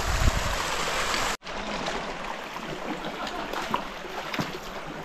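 Wind buffeting the microphone for the first second or so, then after a sudden cut a steady rush of shallow river water running over stones, with a few small ticks.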